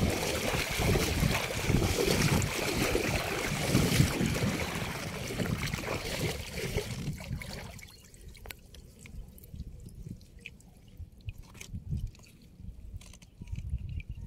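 Water splashing and pouring out through the mesh of a bamboo-framed hand net as it is lifted from shallow water. About halfway through the pouring stops, leaving faint scattered clicks and rustles of hands sorting through mud and weeds in the net.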